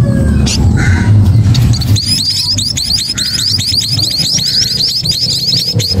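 Nestling songbirds in a grass nest begging: rapid, high, repeated cheeps, several a second, start about two seconds in and keep going. Before they start there is a low rumble.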